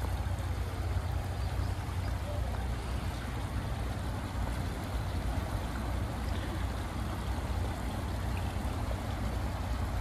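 Shallow stream running over rocks and around stepping stones: a steady, unbroken rush of water with a low rumble underneath.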